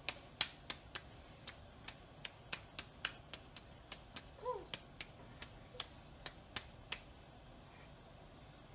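Hands patting a ball of corn masa back and forth between the palms to flatten it into a gordita: a run of light slaps, about three a second, dying away about seven seconds in.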